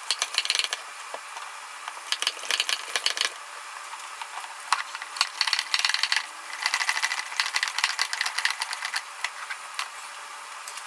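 Plastic clicking and rattling from a Motive Power Bleeder tank and its hose being handled and connected, in several short flurries of quick clicks.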